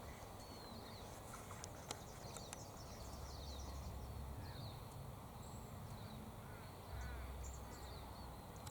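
Faint, scattered high chirps and short whistled calls of small birds over a low wind rumble, with one sharp click about two seconds in.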